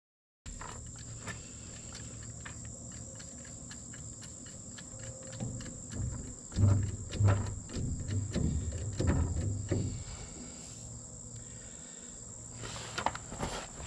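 Steady high insect buzzing, with a run of irregular knocks and clunks from about five to ten seconds in, from working with a jack and blade parts under a mower deck.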